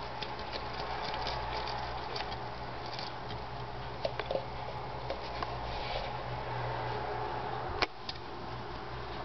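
Steady low hum with scattered faint clicks, and one sharper click about eight seconds in.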